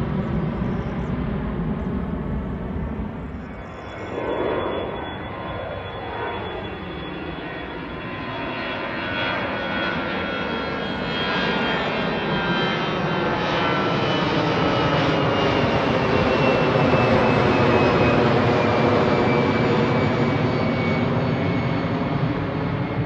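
Jet airliner flying overhead: a steady engine rumble with a high whine that slowly falls in pitch as it passes, growing louder in the second half.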